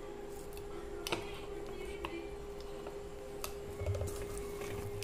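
Steel kitchen plates and vessels being handled, giving a few sharp light clicks, over a steady hum.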